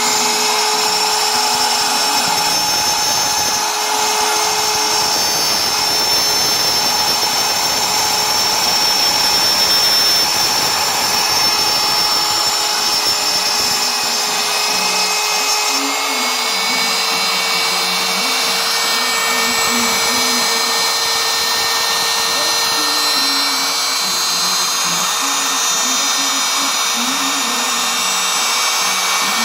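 Small CNC machine running: a steady, high, multi-toned motor whine over a noisy hiss, with a wavering lower pattern underneath. About halfway through, the pitch of the whine shifts slightly.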